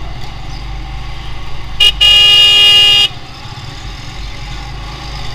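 A vehicle horn, very loud and close, gives a short toot and then a held blast of about a second, two seconds in. Behind it runs the steady sound of a motorcycle engine and city traffic.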